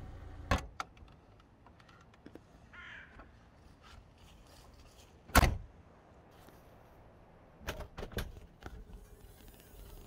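A car door thumps shut about halfway through, with two sharp knocks near the start and a few quick clicks near the end. A crow caws once, briefly, in between.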